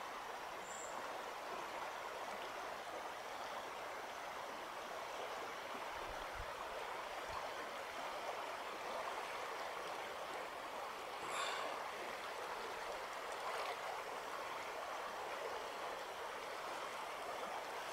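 Shallow river running steadily over riffles: an even rush of flowing water.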